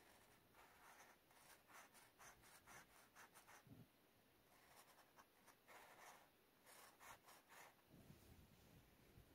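Faint scratching of a felt-tip marker colouring in on paper, in quick runs of back-and-forth strokes, about five a second.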